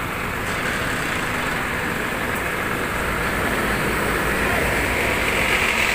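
Intercity coach pulling away and driving close past, its engine running with a low rumble that grows louder as it nears.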